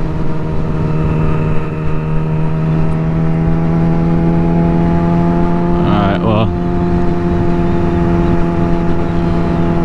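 2020 Yamaha R6's inline-four engine through an M4 slip-on exhaust with the catalytic converter deleted, pulling at steady high revs while the bike is ridden. Wind noise rushes underneath.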